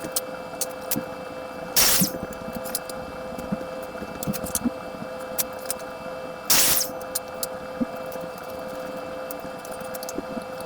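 A steady, fixed-pitch power-tool hum in a wood shop, broken twice by a short, loud burst, with light clicks and knocks of wood being handled.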